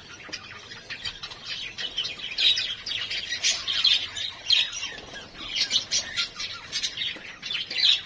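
A flock of pet budgerigars chattering, with many short chirps and squawks overlapping continuously and louder flurries every second or so.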